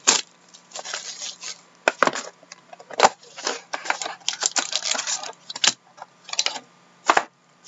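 A box of trading cards being opened by hand: irregular crinkling, rustling and sharp snaps of packaging, with short pauses between.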